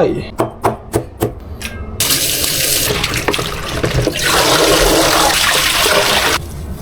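A few quick knife strokes on a cutting board, then a kitchen tap running into the sink, the stream heavier from about four seconds in until it is turned down near the end.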